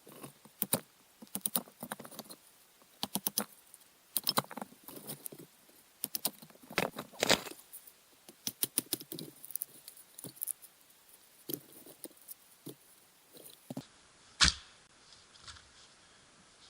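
Irregular clicks, taps and light rattles in quick, uneven clusters, with one sharper knock a little before the end.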